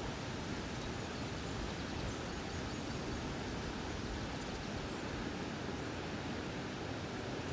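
Steady, even rush of a flowing river.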